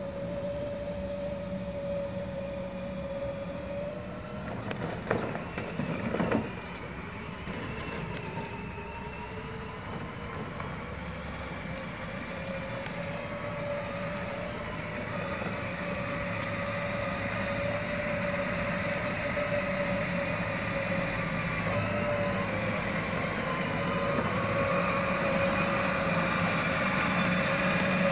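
A car being driven: a steady engine and road hum with a wavering tone, and a few knocks about five and six seconds in. The noise grows slowly louder toward the end.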